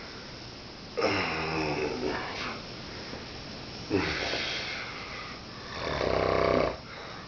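A man snoring in his sleep: three snores about three seconds apart. The first two start sharply and trail off; the third, the loudest, swells and then cuts off suddenly.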